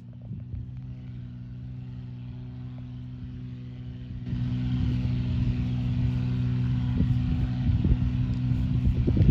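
Cirrus SR22T's turbocharged six-cylinder engine and propeller running at steady pitch at takeoff power, growing louder, with a sharp step up about four seconds in.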